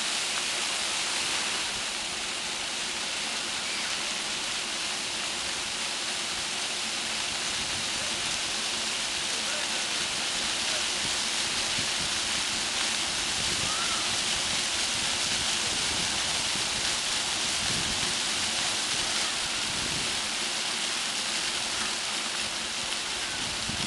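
Many floor-level fountain jets shooting up and splashing back onto wet paving: a steady hiss of falling water.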